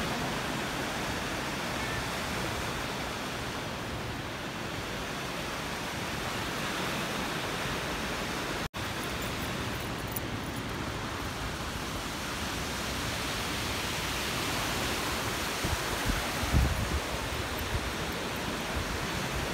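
Steady rushing wind noise on the microphone, with a few low buffeting gusts near the end. It cuts out for an instant about nine seconds in.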